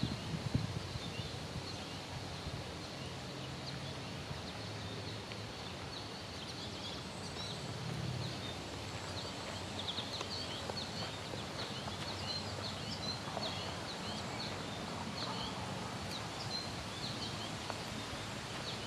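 Small birds chirping in short, scattered high notes over a steady low background rumble.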